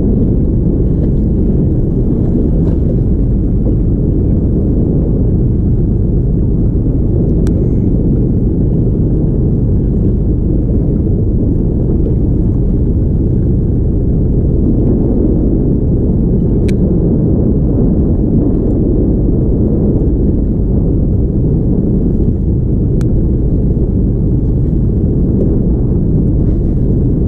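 Steady low rumble aboard a small fishing boat at sea, with a few faint ticks.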